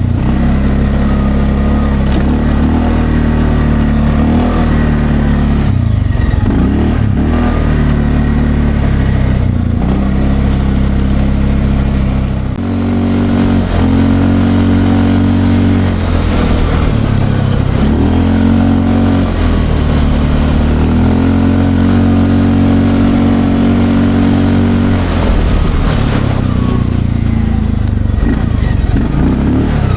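Linhai Landforce 550L ATV engine running under load while driving off-road, its pitch falling as the throttle eases and climbing again as it opens, several times over.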